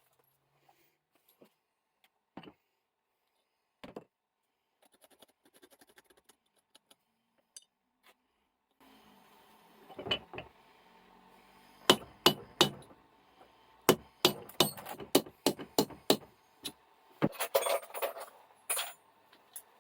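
Metal tools and vise parts clinking and knocking on a small bench vise. A few faint clicks come first, then a run of sharp metallic knocks and clatter in the second half.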